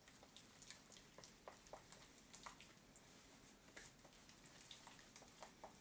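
Faint, irregular clicks and scrapes of a spatula stirring wet dental plaster in a rubber mixing bowl.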